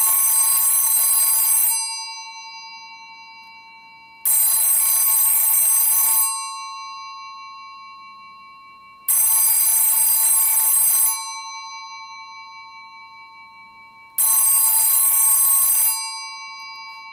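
Western Electric F1A external telephone ringer in its loud setting, ringing both gongs in four rings of about two seconds each, the gongs ringing on and fading between rings. Pretty darn loud.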